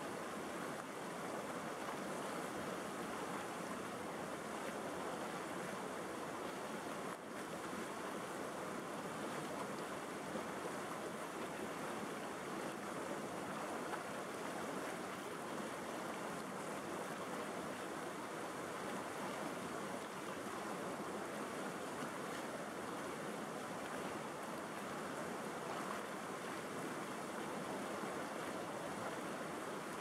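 River rapids rushing steadily: an even, unbroken noise of turbulent white water running over and around rocks and a log.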